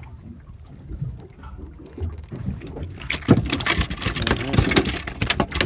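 Boat running over the water: a low rumble at first, then from about three seconds in a louder rushing of water with repeated slaps against the hull.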